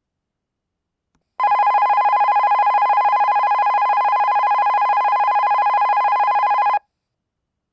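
Keihin-Tohoku Line alarm clock from Nissha Yume Kobo sounding a loud, steady electric bell-like ring, a fast trill on one pitch. It starts about a second and a half in and cuts off sharply about five seconds later.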